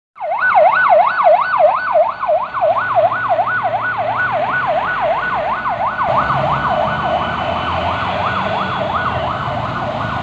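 Police car siren in a fast yelp, its pitch sweeping up and down about three times a second. A vehicle engine and traffic rumble sit underneath and grow louder about six seconds in.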